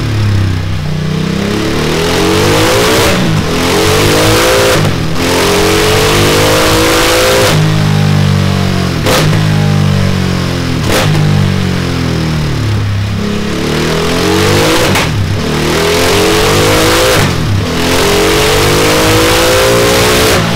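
Ducati Multistrada 1260 S's V-twin engine, breathing through a Delkevic 18-inch oval stainless steel muffler, revving hard on a rolling-road dyno. Its pitch climbs for a second or two, then drops sharply, over and over.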